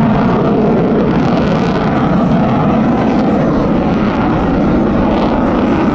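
A U.S. Navy F-35C's Pratt & Whitney F135 jet engine, heard as a loud, steady rushing rumble as the fighter flies its display.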